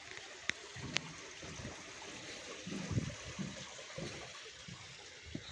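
A small brook, running low, trickling steadily, with a couple of sharp clicks about half a second and a second in and irregular footsteps on a path.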